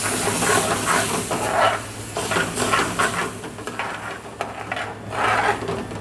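Metal ladle stirring and scraping around a metal pan of chicken pieces in freshly added chicken stock, in repeated strokes, over the sizzle of the hot liquid. A steady low hum runs underneath.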